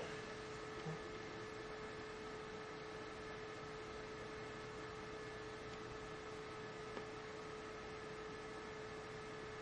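Faint steady electrical hum: one even tone with a few weaker higher tones over a soft hiss, the background noise of the recording.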